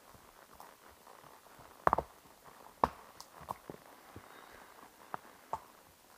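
Horse's hooves striking the trail at a walk: a series of irregular knocks, the loudest a double knock about two seconds in.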